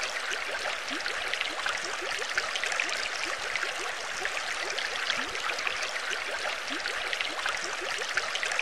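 Underwater bubbling ambience: a steady stream of small bubbles, many short rising blips over a constant watery hiss.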